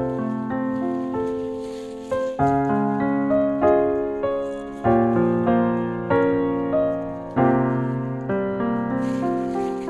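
Background piano music: notes and chords struck one after another, each ringing and fading before the next.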